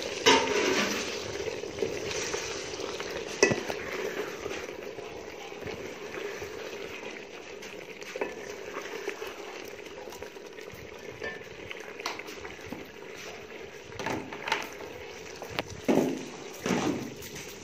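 Chicken and potato curry simmering in an aluminium pot while a metal ladle stirs it, scraping and knocking against the pot several times, a loud knock at the start and a cluster near the end.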